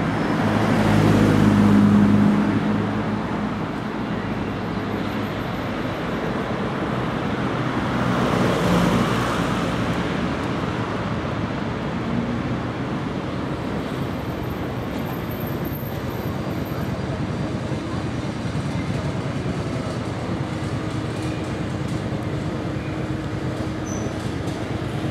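Translohr rubber-tyred electric tram running slowly through a stop. A low hum is loudest in the first couple of seconds, set against steady street traffic noise.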